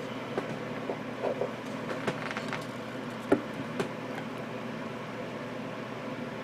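Light clicks and taps of small paint and thinner bottles and a mixing cup being handled as thinner is poured, scattered over the first four seconds with one sharper tap a little past three seconds in, over a steady low hum.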